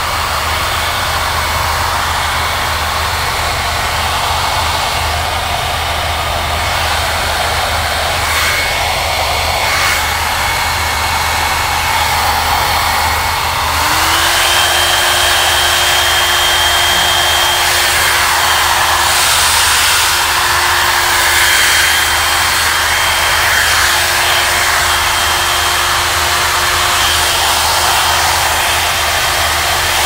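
FEEKAA ionic hair dryer running, blowing air with a steady rushing noise and a motor whine. About fourteen seconds in, its tone steps up in pitch and it gets a little louder.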